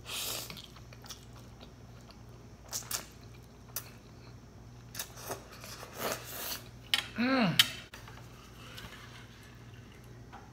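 Spaghetti slurped off a fork, then a run of short clinks and scrapes of a fork and spoon against a plate with chewing. About seven seconds in comes a short hum from the eater that falls in pitch.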